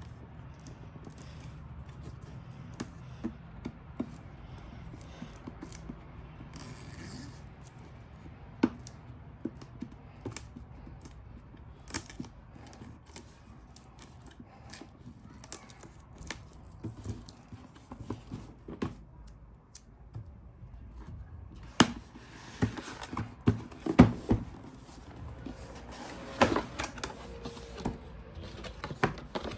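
The seal on a cardboard box being torn open, then scattered clicks, scrapes and rustles as the cardboard packaging is handled. The knocks grow louder and closer together near the end.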